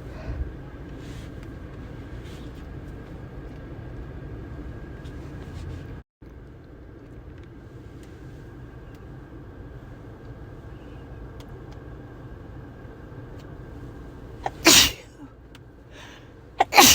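Steady low rumble of a car cabin, then a person sneezing loudly twice near the end, the sneezes about two seconds apart.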